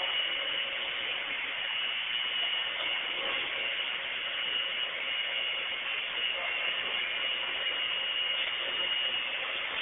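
Steady machinery drone with a high whine and a lower hum, held at an even level throughout: the hydraulic loading system driving the jacks that press down on a concrete girder under test.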